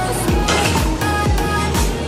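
Background pop music with a steady, even drum beat.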